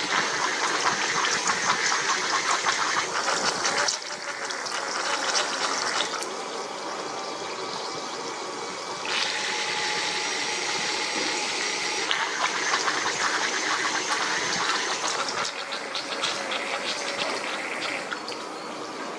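Water splashing from a small four-pump fountain driven by submersible DC pumps. The spray sound changes abruptly every few seconds as the Arduino-controlled pumps are switched in a pattern.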